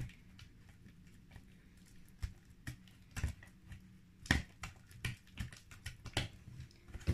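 Shampoo-and-flour slime being mixed by hand: a run of irregular soft clicks and sticky squishes, sparse at first and coming thicker from about two seconds in. The mixture is still fairly stiff.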